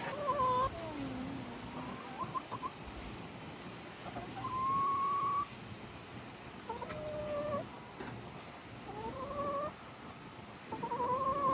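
Chickens calling: a string of drawn-out, pitched hen calls, about seven of them, each half a second to a second long, the longest about halfway through.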